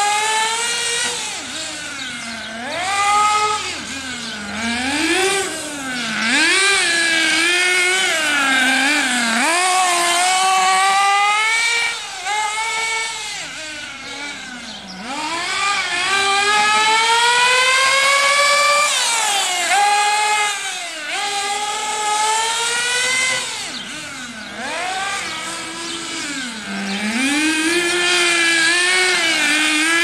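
HPI Trophy 3.5 nitro buggy's small two-stroke glow engine, geared with a long clutch bell, revving up and down lap after lap. Its pitch climbs on each straight and drops sharply when it brakes for a corner, with one long climb to a high whine about halfway through.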